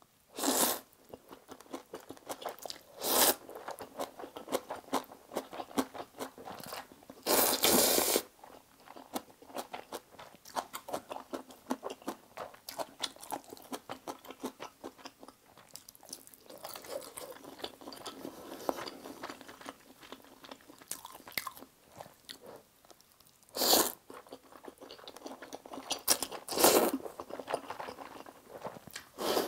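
A person eating spicy stir-fried instant noodles into a close lapel mic: several loud noodle slurps, with wet chewing and mouth clicks in between.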